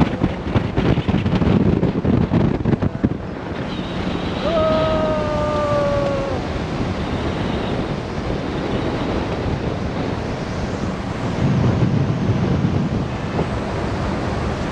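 Wind buffeting the camera microphone in a moving jeep, a steady rush with gusts in the low end and road rumble underneath. A short pitched tone with a slight downward slide sounds once, about four and a half seconds in, for under two seconds.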